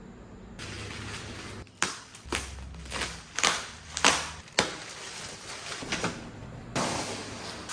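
Monitor packaging being handled and opened: a run of sharp taps and short scraping swishes, then a steadier rustle near the end.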